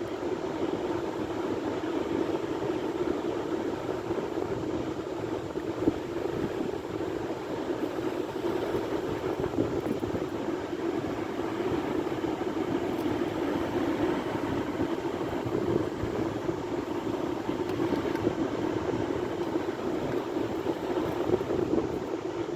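Sea waves breaking: a steady wash of surf noise that stays even throughout.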